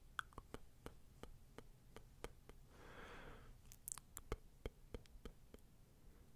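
Faint, close-miked soft clicks, a few a second, with one soft breathy sound about three seconds in.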